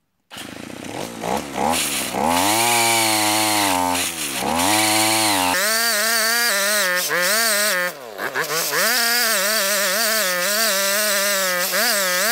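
Brushcutter engine driving a homemade chainsaw attachment. It starts sharply and revs up and down, then holds at speed with its pitch dipping briefly several times, as when the chain bites into wood.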